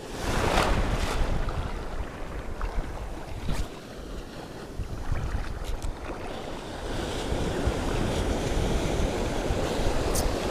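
Sea waves washing onto the shore, with wind buffeting the microphone and a surge of surf about half a second in.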